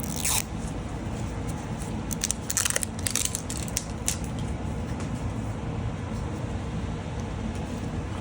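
Small plastic containers and packaging being handled, with a quick cluster of crinkles and clicks about two to three and a half seconds in, over a steady low background hum.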